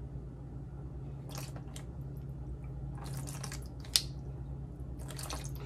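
Soy sauce being poured from a bottle into a tablespoon, a few faint brief drips and splashes with a small click about four seconds in, over a steady low hum.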